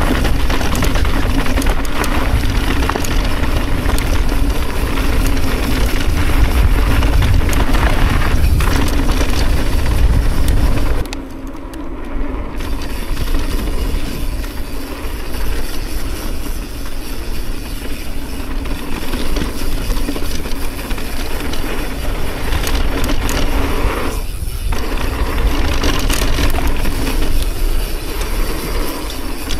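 Mountain bike descending a rough bike-park trail over brake bumps: a loud, steady rumble and rattle of tyres and bike on the rough ground. About eleven seconds in the deep rumble drops off suddenly and the noise goes quieter but stays rough.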